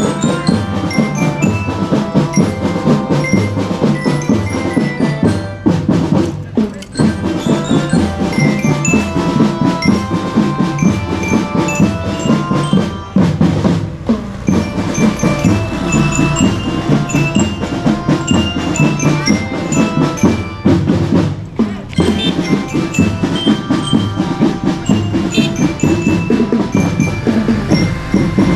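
A children's marching drum band playing: snare and bass drums keep a busy steady beat while bell lyres ring out the melody in short, bright notes.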